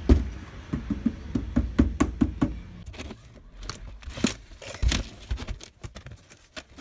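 Irregular knocks and clicks from hands handling an opened LCD TV and its parts on the bench, the loudest right at the start and a few about four to five seconds in.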